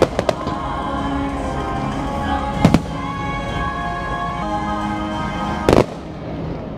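Fireworks going off over the show's music: a quick few sharp bangs at the start, a pair about two and a half seconds in, and another pair near the end. The music runs steadily underneath and drops quieter after the last pair.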